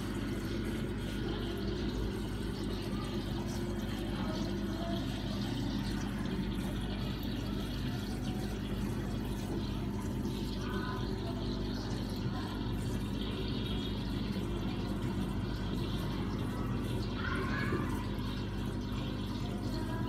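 Aquarium filter running: a steady trickle of moving water over a low, even hum.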